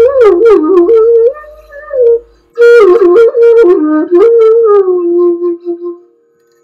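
Background music: a single flute melody sliding and bending between notes, with a short break about two and a half seconds in, dying away near the end.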